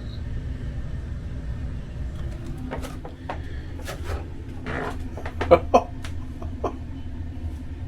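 Steady low hum of a room heater, with scattered clicks and knocks from about a third of the way in, the two sharpest a little past halfway.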